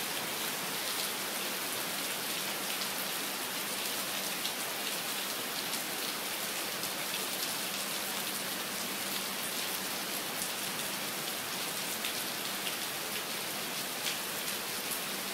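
Steady rainfall, an even hiss with scattered single drops tapping.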